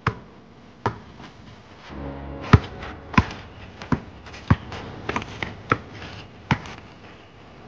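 Basketball being dribbled on a concrete court: a string of sharp bounces, roughly one every half to three-quarters of a second.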